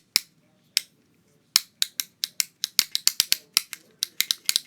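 Sharp plastic clicks of a fidget cube being worked by hand. A few spaced clicks, a short pause about a second in, then steady clicking at several a second that gets faster near the end.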